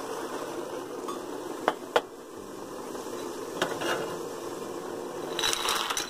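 Water boiling in a stainless steel pot, with sharp metallic clinks of a utensil against the pot, two close together about two seconds in and fainter ones near four seconds. Near the end comes a short rush as dried soya chunks are tipped into the boiling water from a bowl.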